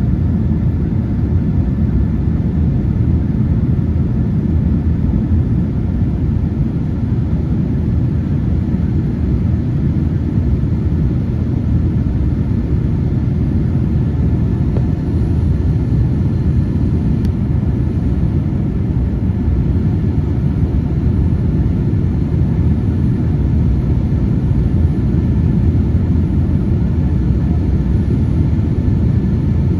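Steady low rumble of an airliner's engines and rushing air, heard from inside the cabin as the plane flies on after takeoff.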